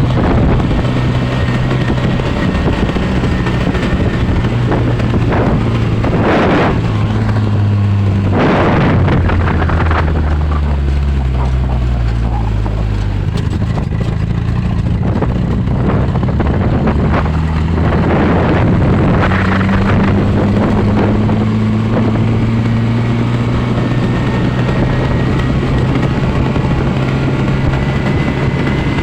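A vehicle engine running under way, its pitch dropping for a few seconds and then climbing again as the speed changes, with a steady rush of wind noise and a few louder gusts.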